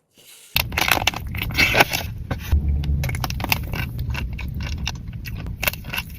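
Close-miked biting and chewing of a dessert, with dense crunchy crackles and clicks, starting about half a second in.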